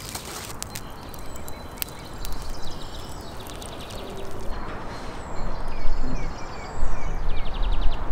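Outdoor ambience: a rough low rumble that grows louder in the second half, with a quick run of short, falling bird chirps in the middle. A few light clicks in the first couple of seconds fit a metal poker stirring charcoal.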